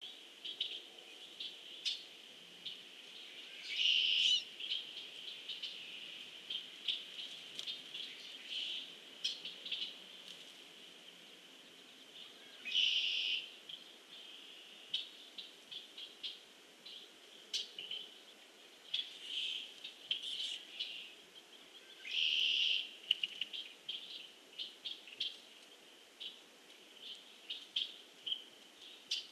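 Wild birds calling, with many short chirps scattered throughout. Three louder, longer calls come about nine seconds apart.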